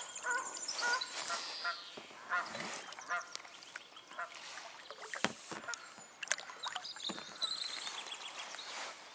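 A goose honking, a rapid run of short nasal calls in the first few seconds, then fewer later. There are a few sharp knocks midway, and high thin bird chirps at the start and again near the end.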